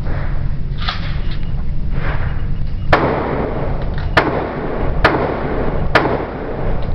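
AR-15 rifle in .223/5.56 firing four shots about a second apart, each a sharp crack with a short echo, over a steady low rumble.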